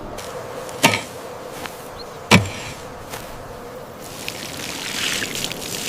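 Two sharp knocks about a second and a half apart over a faint steady hum, then a rustling hiss near the end.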